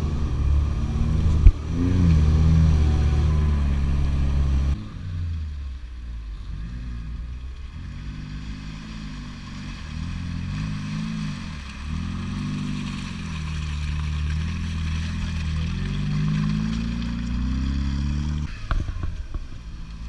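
Lada Niva engine pulling through a muddy forest track, heard close up from on board, with a sharp knock about a second and a half in. After a sudden change to a more distant sound, the engine revs up and down again and again as the Niva works its way through deep mud ruts.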